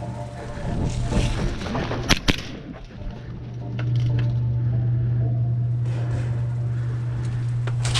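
Two sharp snaps of airsoft fire, a fraction of a second apart, about two seconds in, over a steady low hum that grows louder about halfway through.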